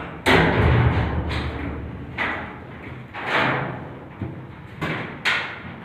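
Irregular heavy thumps and bangs, about one a second, each booming and echoing inside a steel car-carrier container.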